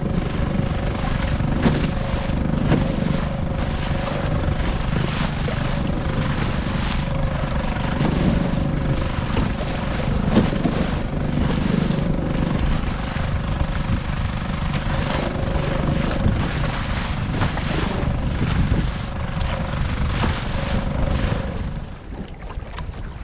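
Small outboard motor on a fishing kayak running steadily as the kayak travels over choppy sea, with wind buffeting the microphone. The sound drops away about two seconds before the end.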